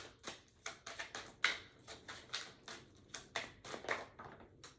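A deck of tarot cards being shuffled and handled: an irregular run of soft clicks and taps, several a second.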